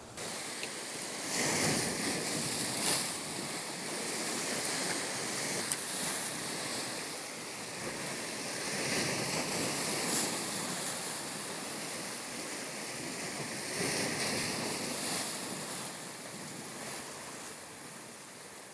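Sea waves washing and surging against the shore, swelling every few seconds with a steady rush of water between.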